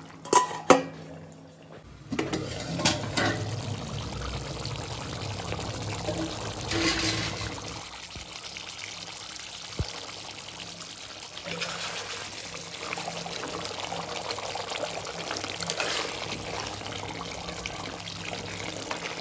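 Pork curry with fermented soya bean bubbling as it simmers in a metal pan, a steady wet bubbling that swells now and then, with a few sharp clicks near the start and a spatula stirring through the gravy.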